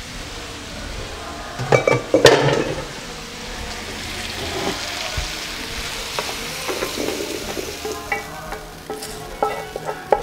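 Zucchini slices sizzling in oil in a frying pan. About two seconds in there is a loud clatter as a wooden spoon stirs and knocks against the pan. Near the end come clinks and scrapes as the fried slices are tipped from the pan into a stainless steel bowl.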